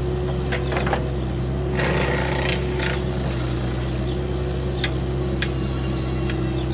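A motor running steadily at one constant pitch, with scattered knocks and clatters over it and a busier rattling patch about two seconds in.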